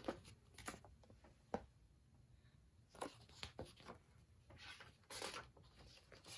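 Faint rustle of a picture book's paper page being turned by hand, with a few soft handling noises before it, against near-silent room tone.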